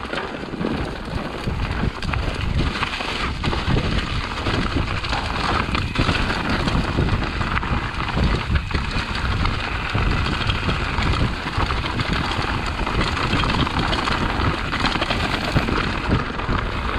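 Full-suspension trail bike riding fast down rocky singletrack: the tyres rumble over dirt and rocks, the frame and parts rattle and knock, and wind rushes over the microphone.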